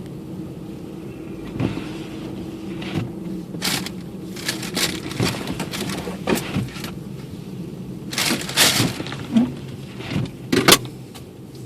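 A car's cabin while driving through a snowstorm: a steady engine and road hum. From about three and a half seconds in, a string of irregular short scraping and rushing noises comes over it.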